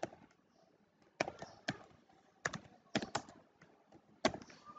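Computer keyboard being typed on: about seven separate, sharp key presses at an irregular pace.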